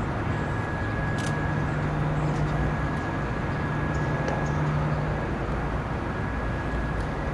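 Box truck's engine idling: a steady rumbling noise with a low hum that drops away about five seconds in, and a faint steady high whine.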